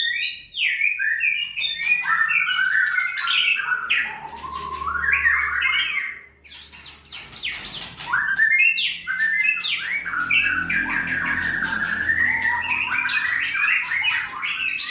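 White-rumped shama (murai batu) singing a long, varied song of fast whistles and chattering notes, broken by a short pause about six seconds in.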